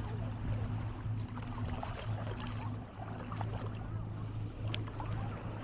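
A steady low engine hum running, with faint distant voices over it.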